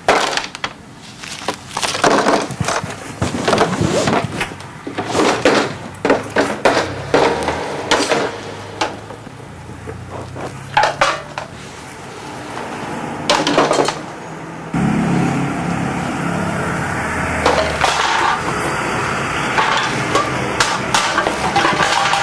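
Recyclable waste such as cans, plastic packaging and bins being struck, rattled and knocked as improvised percussion, in irregular sharp clatters. About fifteen seconds in it switches suddenly to a denser, continuous clatter over a low rumble.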